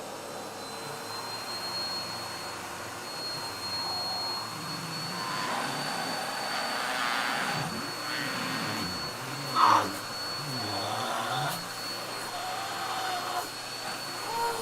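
Vacuum cleaner running steadily with a high whine, pulling hard enough that the person in the challenge strains against it. Over it come wordless strained groans, with a louder cry about ten seconds in.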